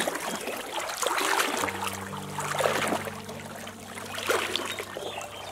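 Water splashing and sloshing as a person wades through a shallow stream and sweeps a woven bamboo basket through the water. A steady motor hum comes in about a second and a half in.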